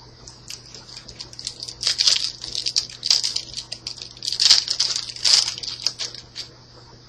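Foil booster-card pack being crinkled and torn open by hand: a run of crackling rustles, loudest in the middle.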